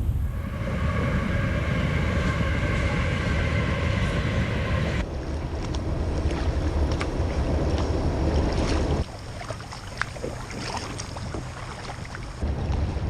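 Kayak being paddled on a creek, heard through an action camera: a strong low wind rumble on the microphone, with water splashes and scattered light knocks and taps. A steady higher multi-tone hum runs for the first five seconds and then cuts off suddenly. The rumble drops away for a few seconds near the end, leaving mostly the taps, then comes back.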